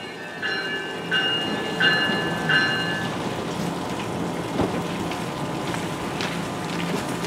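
A train's warning bell rings in even strokes about every 0.7 seconds and stops about three seconds in. Then a steady hiss of rain goes on over the low hum of the standing train.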